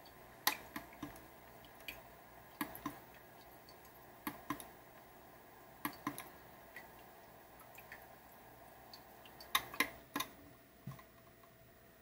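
Sharp clicks, singly and in quick pairs every second or two, as fingers press the buttons on top of a Duux DUAH04 ultrasonic humidifier. A faint steady hum lies underneath.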